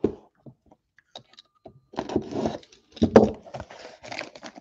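Plastic shrink wrap on a sealed trading-card box crinkling and tearing as the box is handled and unwrapped. A few light clicks come first, then steady crackling from about two seconds in.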